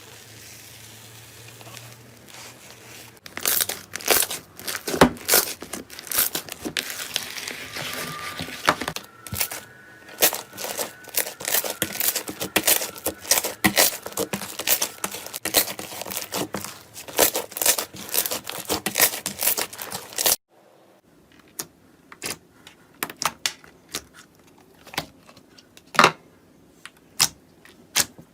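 Slime being squeezed and worked by hand, giving dense crackling and popping clicks that sparse out into single pops after a cut near the end. It opens with a few seconds of steady soft hiss.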